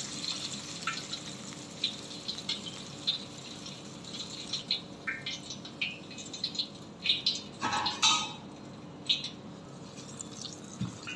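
Hot oil sizzling around chicken being deep-fried in a steel wok, with scattered crackling pops as the chicken is lifted out on a metal slotted spatula. A louder clatter of utensil and metal cookware comes about eight seconds in.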